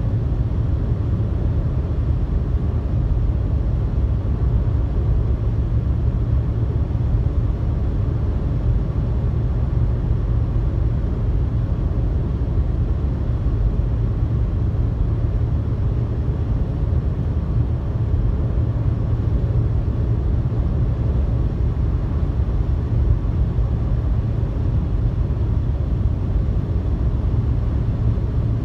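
Steady low rumble of road, tyre and engine noise heard inside a car's cabin while cruising on a highway, even and unchanging throughout.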